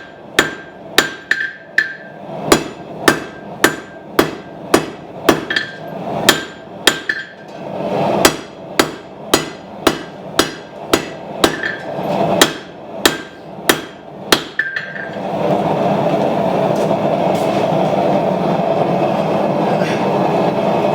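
A hand hammer strikes a hot steel bar on an anvil about twice a second, drawing out a small puukko knife blade, and the anvil rings after the blows. The hammering stops about 15 seconds in, and the steady rushing of the forge follows.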